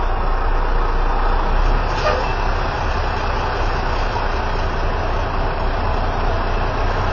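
Heavy vehicle engine running steadily with a low rumble.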